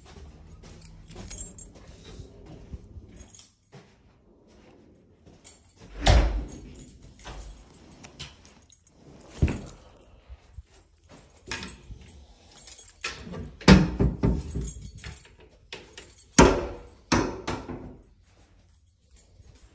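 Keys jangling and handling noise, with several sharp knocks and thumps: a loud one about six seconds in, another near the middle, and a cluster in the second half.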